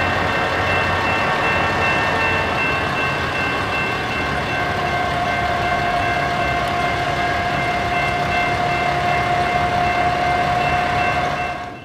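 EMD GP9 diesel locomotive running close by, its engine rumble mixed with several steady high whines; another steady whine joins about four to five seconds in.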